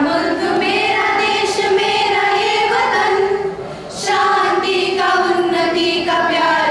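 A group of girls singing together into microphones, in long held notes, with a short break and a breath about four seconds in before the next phrase.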